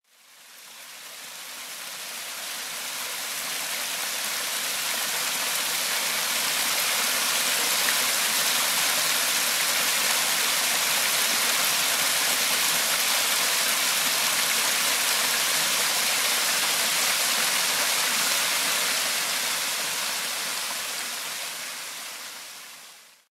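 A small creek spilling over stepped rock ledges: a steady rush of falling water that fades in over the first few seconds and fades out near the end.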